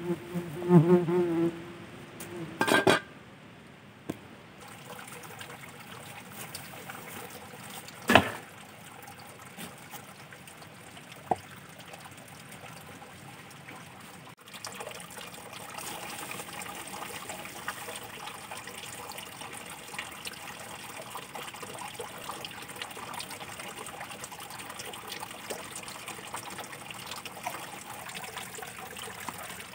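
Water running and trickling steadily, starting suddenly about halfway through, while a garden is being watered. Before it come a short wavering pitched sound near the start and a few sharp knocks, the loudest moments.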